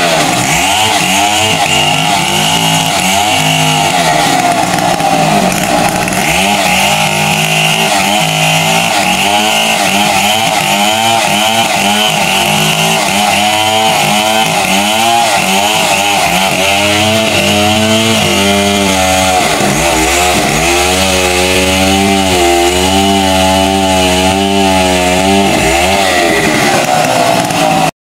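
Chainsaw cutting through a log without a break, its engine note rising and falling as the chain bites into the wood and eases off.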